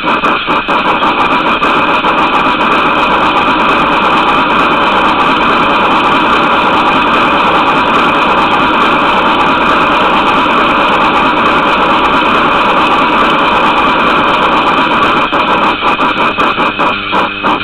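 Mallet roll on the eMotion XLS, played with a Harz mallet: very fast, continuous strokes that blend into a sustained chord of ringing tones. Near the end the roll loosens into separate strikes.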